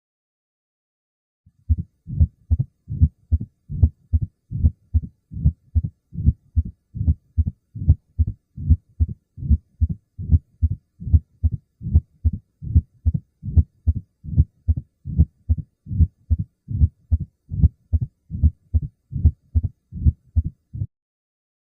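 Recorded heart sounds of a stenotic atrioventricular valve (the condition taught here is mitral and tricuspid stenosis): a long run of regular, low heartbeats with a murmur. The beats start about a second and a half in and stop shortly before the end.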